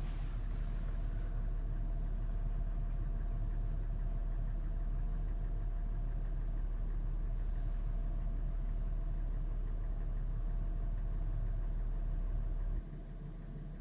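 Toyota FJ's engine idling steadily after a warm start, with the clattering, tapping sound at idle that the owner is recording as a suspected fault. It drops in level about a second before the end.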